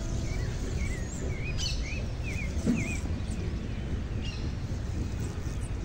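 Steady low outdoor rumble, over which a bird calls a run of about six short wavy notes in the first three seconds, with a few fainter chirps from other birds.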